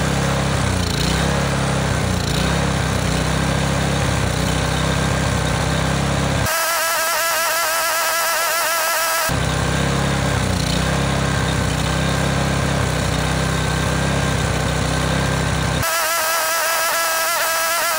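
Small pressure-washer engine on a lawn mower deck running on carburetor cleaner instead of gasoline, surging up and down in speed. Twice the sound jumps for about three seconds to a sped-up, higher-pitched stretch in which the surging comes faster.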